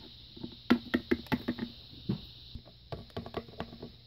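Light taps and knocks of a small plastic toy figure being hopped along a tabletop: a quick run of taps about a second in, then a few more scattered taps in the second half.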